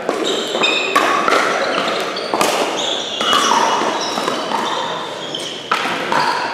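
Pickleball paddles striking a perforated plastic ball in a rally: sharp pocks a second or more apart, each followed by a ringing echo in a large hall.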